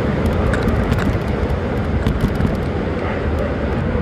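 Steady rumble of wind on the microphone of a moving bicycle, mixed with road noise, with scattered light clicks in the first half.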